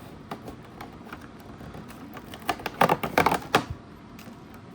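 Cardboard and plastic packaging of a Pokémon TCG holiday calendar compartment being opened by hand: a quick run of sharp crackles and clicks from about two and a half seconds in, lasting a little over a second.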